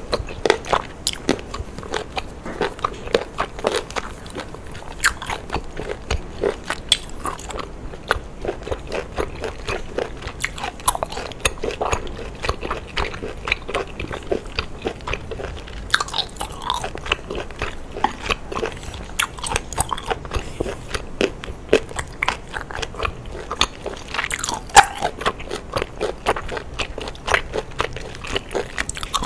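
A person eating seafood close to the microphone: wet chewing and biting with a constant run of sharp clicks and crunches.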